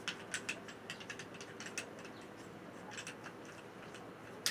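Hand tubing cutter working on a length of rigid watercooling tube: a run of sharp, irregular clicks and ticks, with one louder snap near the end.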